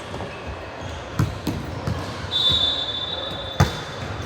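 Basketball bouncing on an indoor court, with sharp thuds a little after a second in, again soon after, and a loudest one near the end, in a reverberant gym. A steady high squeal lasts about two seconds in the second half.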